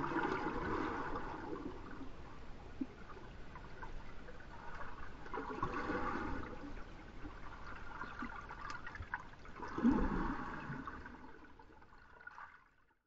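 Muffled pool water sloshing and gurgling, heard from a GoPro Hero3+ held just below the water's surface. It swells three times and fades out near the end.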